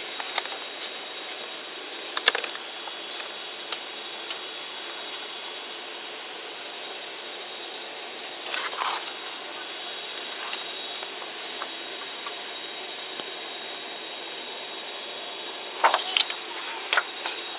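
Cabin of a turboprop airliner waiting before departure: a steady air hiss with a thin high whine. A few short clicks and knocks come about two seconds in, around nine seconds, and a cluster near the end.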